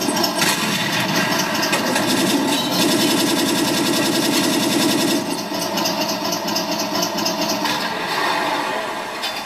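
TK22 sound card in an RC Tiger I tank playing a simulated tank engine through its small speaker. The engine note pulses steadily, then changes character about halfway through as the sticks are worked.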